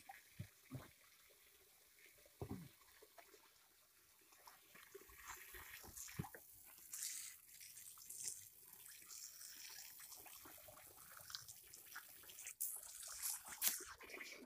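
Faint dripping and small splashes of water, with irregular wet ticks, as wet fish are lifted out of a bucket of water and laid on a board. The drips come more often from about five seconds in.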